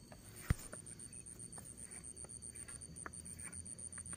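A night insect chirping in a rapid, even train of high-pitched pulses that grows louder towards the end, with one sharp click about half a second in.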